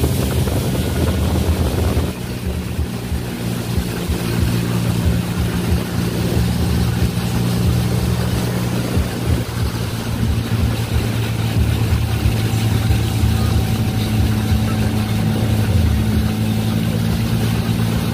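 Boat engine running steadily, a low droning hum over the rush of water and wind. The pitch dips briefly about three-quarters of the way through.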